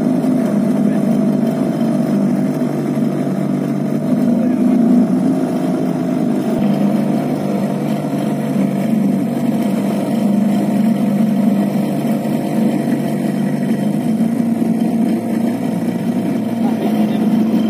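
Small wooden boat's engine running steadily under way, an even drone that holds the same pitch throughout.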